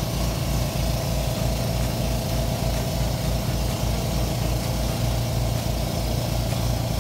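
Engine of a wooden motorboat running steadily under way: an even low throb with a steady hiss over it.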